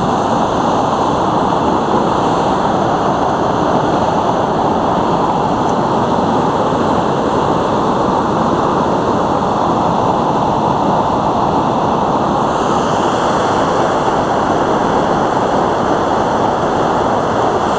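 Steady, loud rushing of a waterfall cascade in a fast stream.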